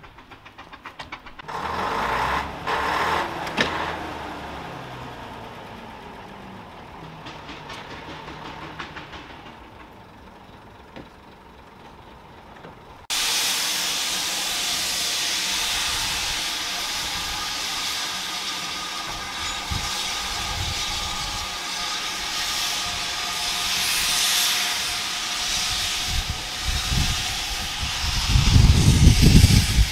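Steam locomotive's cylinder drain cocks hissing loudly and steadily as the engine moves off, with heavy low rumbling near the end. Before that, a heritage diesel railcar's engine runs at a platform, rising briefly early on.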